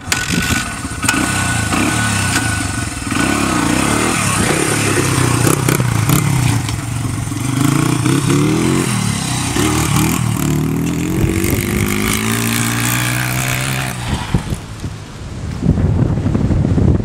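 Pit bike engine revving hard as it pulls away, its pitch climbing and falling again and again through the gears. About fourteen seconds in the engine note drops away, and rough wind noise on the microphone takes over.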